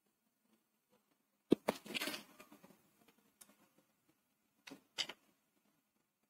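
Handling noises on a kitchen counter: a sharp knock followed by about a second of rustling, then a couple of quick clicks near the end.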